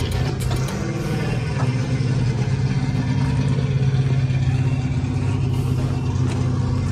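Air-cooled flat-four engine of a split-window Volkswagen bus idling steadily, a little louder in the middle.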